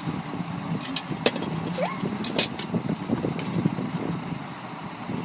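Sharp clicks and knocks of gaming-chair parts being handled as the seat and armrest are positioned for assembly, several in the first half and one more near the end, over a steady low hum. A short rising squeak comes about two seconds in.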